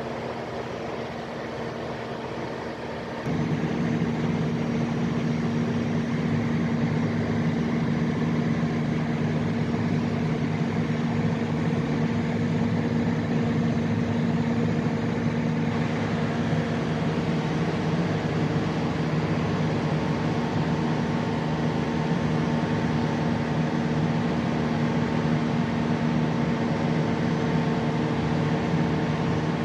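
Kohler generator set's Mitsubishi diesel engine running steadily: a constant mechanical drone with a steady hum, growing louder about three seconds in and then holding even.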